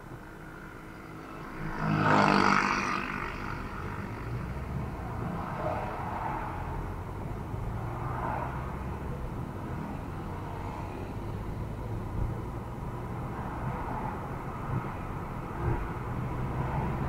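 Cabin road and engine noise of a car driving, as picked up by the dash cam's built-in microphone: a steady low rumble, with a louder swell of noise and a low hum about two seconds in.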